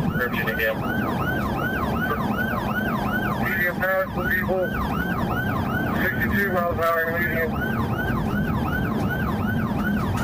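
Police car siren in a fast yelp, its tone sweeping up and down about three times a second, over steady road noise from the pursuing cruiser.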